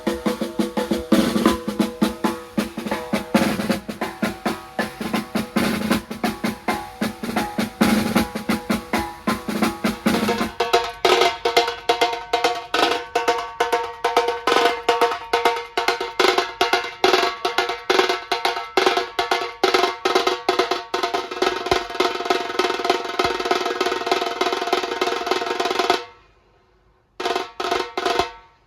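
Drums played in fast, dense strokes and rolls. The pattern shifts to a brighter sound about a third of the way in. Near the end the playing cuts off abruptly, then starts again about a second later.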